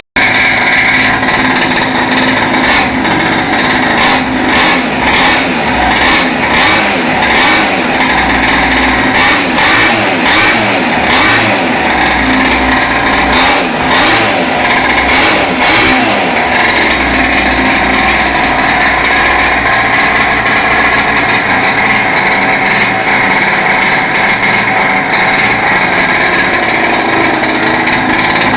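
Mini quad's small modified engine running, revved up and down repeatedly through the first half, then running steadily.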